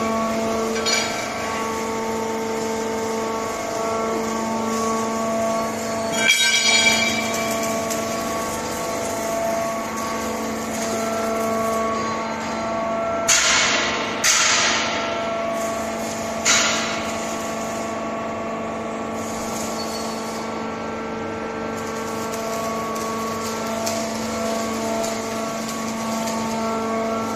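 Steady hum of workshop machinery running, with several sharp metallic clanks about 6, 13, 14 and 16 seconds in.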